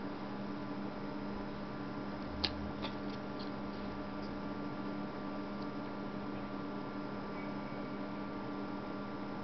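Steady electrical hum throughout, with a few light clicks and taps about two and a half to three and a half seconds in as disposable cardboard anaglyph 3D glasses are handled and their earpieces unfolded; the first click is the loudest.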